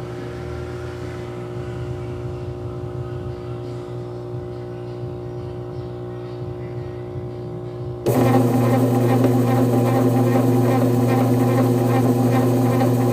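Brastemp top-load washing machine running on spin with the basket disengaged so only the agitator turns: a steady motor hum. About eight seconds in it turns suddenly much louder, with a fast rattling texture over the hum. The intermittent knocking being hunted does not show up.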